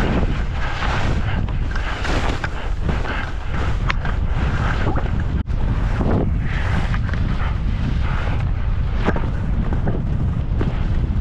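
Wind buffeting the microphone in a steady low rumble while skiing downhill, with skis hissing over the snow in swells that rise and fall through the turns.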